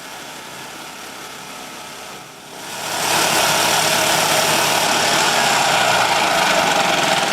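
Homemade log saw driven by an old golf cart's engine, running steadily, then getting much louder about two and a half seconds in as the saw bites into the log and cuts.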